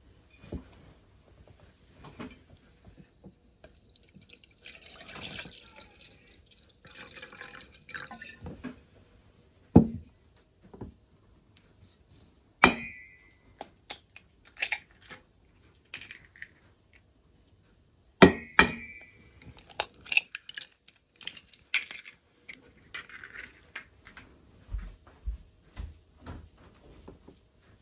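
Milk pouring into a stainless steel saucepan, then eggs knocked sharply against the saucepan's rim, a few of the knocks with a short metallic ring, amid small clinks of kitchen things on the table.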